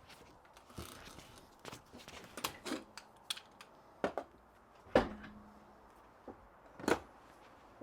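A series of scattered knocks and clunks, the loudest about five seconds in and again near the end.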